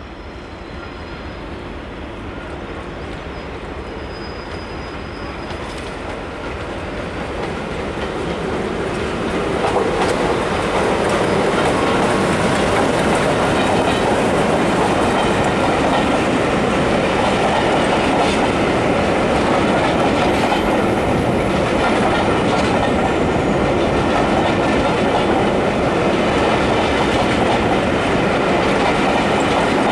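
Class 86 electric locomotive hauling a train of coaches past the platform. The sound of wheels on the rails grows louder over the first ten seconds as the train approaches, then holds steady as the locomotive and coaches go by.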